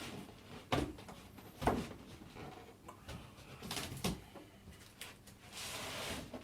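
Cardboard box and packaging knocking and scraping as a PC case is worked out of it, the handles catching on the cardboard: several sharp knocks, then a longer scraping rustle near the end.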